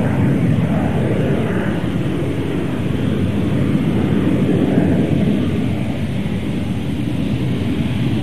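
The Rolls-Royce Pegasus vectored-thrust turbofan of a hovering Sea Harrier, a loud, steady jet rush that is deepest at the low end and never breaks.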